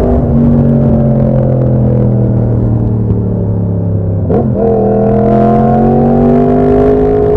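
Yamaha FZ-10's crossplane inline-four engine running as the bike slows, its note sinking steadily, with wind on the helmet-mounted microphone. Just after four seconds in the pitch jumps at a gear change, and the engine then pulls on with a steady, slightly rising note.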